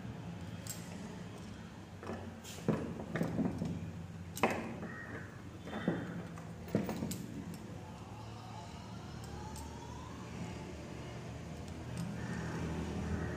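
A few sharp metallic clinks and taps, bunched between about two and seven seconds in, as metal bangles, wire and pliers are handled on a wooden bench, over a low steady hum.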